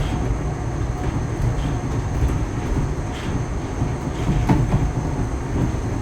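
Passenger train running, heard from inside the carriage: a steady low rumble with a few faint clicks from the wheels and track.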